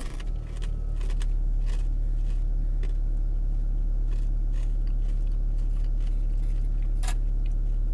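Fried chicken being eaten from a cardboard box: scattered crunchy bites and rustles of the box, the sharpest about seven seconds in. A steady low rumble swells up in the first second and then holds.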